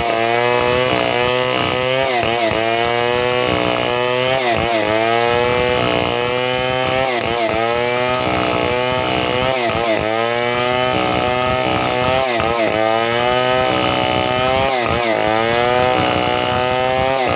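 Chainsaw running at high revs while cutting wood, its engine pitch dipping briefly and recovering about once a second as the chain bites into the cut.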